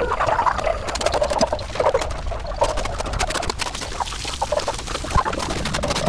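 Water splashing and dripping onto a metal grate table as a dog is bathed, with many small clicks and short animal-like sounds among the splashes.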